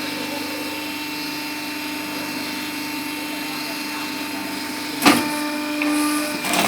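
Electric rice-paper cutting machine running with a steady motor hum, with a sharp clatter about five seconds in and another near the end.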